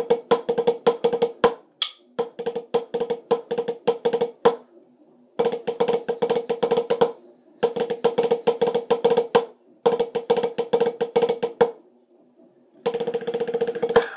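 Snare drumsticks playing Swiss Army triplets: fast repeated runs of flams and taps, each phrase about two seconds long with short breaks between. The last run, near the end, is denser and more continuous.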